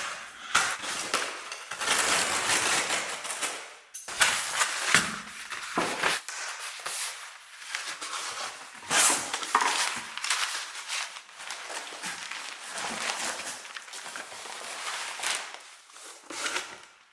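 Crinkling and rustling of packaging being unwrapped and handled, in irregular bursts.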